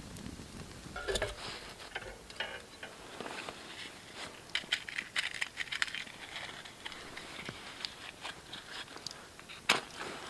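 A metal hurricane lantern being handled and lit: a run of small metal clicks and rattles, ending in one sharp clack near the end.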